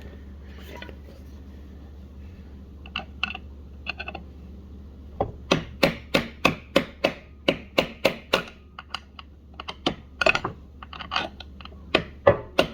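A few light metallic clicks, then from about five seconds in a steady run of sharp hammer taps, roughly three a second, on a heat-welded snap ring inside an A904 automatic transmission, working it loose so it will spin.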